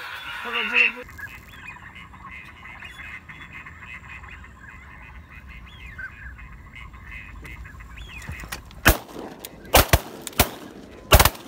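Ducks calling over open water, then about five shotgun shots fired in quick succession near the end as the flock flushes.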